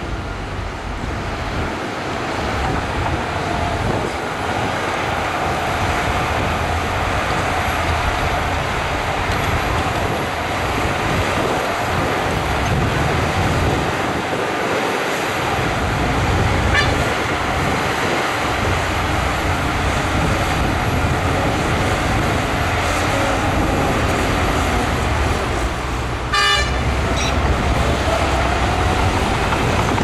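Heavy diesel engines running steadily, with a held whining tone: a dump truck's engine drives the hydraulic hoist that raises its tipper bed, and a bulldozer runs as well. A brief rattle of ticks comes near the end.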